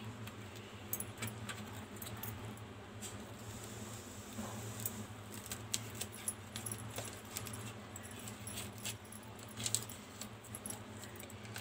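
Faint, scattered clicks and light scraping of a knife slitting bitter gourd (karela) lengthwise, with hands handling the gourds over a steel plate. A low steady hum runs underneath.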